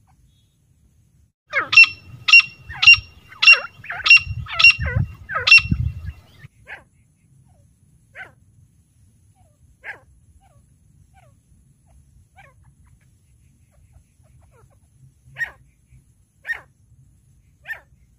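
Female grey francolin calling: a loud run of about seven sharp notes, a little under two a second, then fainter single notes every second or two.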